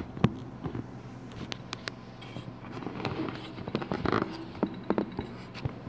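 Scattered light clicks, taps and knocks of a phone being handled and repositioned on a flexible mounting arm, over a faint steady low hum.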